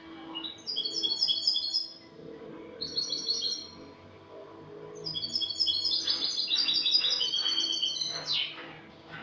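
European goldfinch (jilguero) singing in three bursts of rapid, repeated high twittering notes, the last phrase the longest at about three seconds. This is the bird's full song, which its keeper calls clean (cante limpio).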